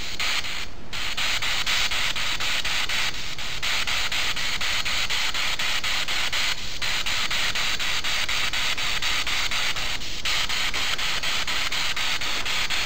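Spirit box radio sweeping through stations: a steady hiss of static chopped by quick clicks, about five a second, as it jumps from channel to channel, with a brief dip every few seconds.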